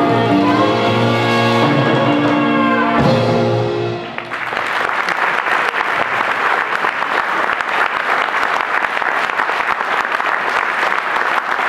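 A wind instrument ensemble with keyboard and bass guitar plays its closing chords, which stop about four seconds in. An audience then applauds.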